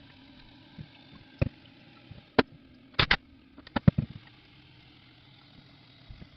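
Toilet tank refilling through its fill valve, a steady hiss of running water. Several sharp clicks and knocks come between about one and a half and four seconds in.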